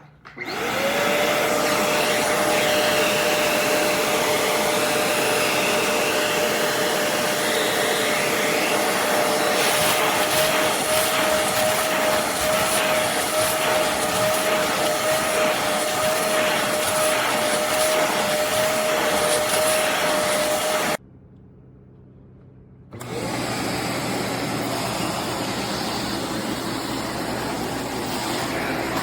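Bissell Zing bagless canister vacuum cleaner switching on, its motor whine rising quickly to a steady pitch, then running steadily with a loud suction rush. About 21 seconds in the sound cuts off abruptly. Two seconds later the running noise resumes without the whine.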